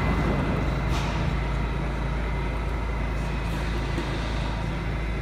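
R68 subway train standing at the platform with its doors open, giving off a steady low hum from its onboard equipment, with a faint click about a second in.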